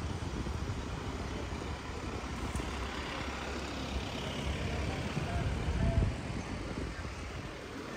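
City street traffic: a steady rush of passing vehicles with a low rumble, swelling briefly about six seconds in as a car goes by.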